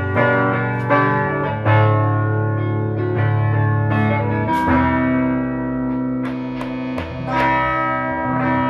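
Electric guitar played through a Giannini Thunder Sound valve bass amplifier head, with 12AX7 preamp valves: chords and notes struck every second or so and left to ring and sustain. The amp is working normally.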